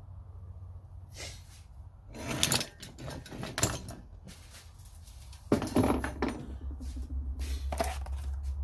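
Handling noise: tools and items being picked up and set down on a surface, a series of clatters and knocks, over a low steady hum that gets louder about halfway through.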